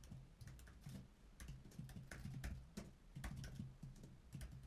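Faint, irregular keystrokes on a computer keyboard as short strings of characters are typed.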